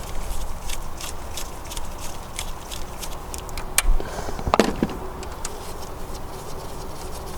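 Small metallic clicks and clinks of hand tools and engine parts as a chain tensioner is unbolted from the top of the engine, with a louder clatter of metal about four and a half seconds in.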